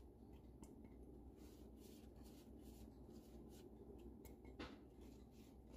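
Near silence: faint soft strokes of a pastry brush dabbing water onto scored baguette dough, with one slightly louder touch about four and a half seconds in, over a low room hum.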